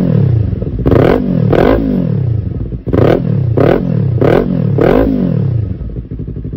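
Motorcycle engine breathing through a newly fitted SC Project aftermarket exhaust, blipped about six times in quick rev-and-drop bursts, then settling to a steady idle near the end.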